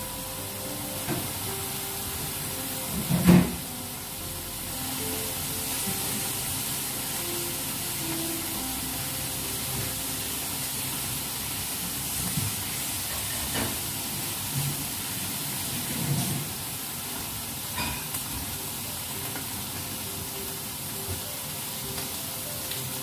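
Food sizzling in frying pans on a stove, a steady hiss, with a single loud knock about three seconds in and a few lighter knocks later on.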